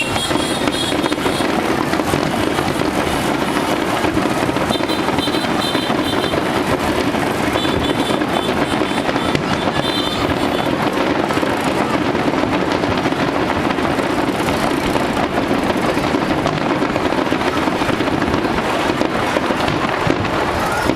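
Fireworks going off in a dense, continuous crackling barrage with many rapid small bangs.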